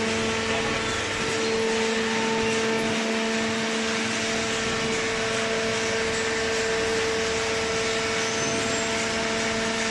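Cardboard baling machine running: a steady mechanical hum with a constant tone and a broad rushing noise, unchanging throughout.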